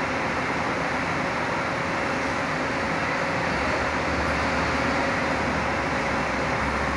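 Bus engine running close by, a steady noise, with a deeper low drone coming in about halfway through.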